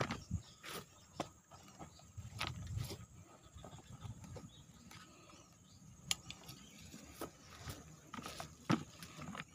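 Handling sounds on dry ground: scattered light clicks, knocks and rustles from footsteps through dry, cracked rice-field stubble and a hand on a plastic bucket, with the sharpest clicks about six seconds in and near the end.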